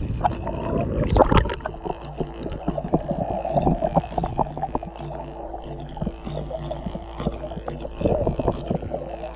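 Water sloshing and splashing around a camera at the sea surface, loudest in the first second and a half, then muffled underwater gurgling and crackling with a low steady hum.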